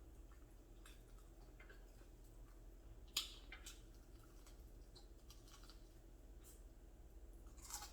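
Mostly quiet, with a few faint, scattered clicks of chewing and mouth sounds while eating fried chicken.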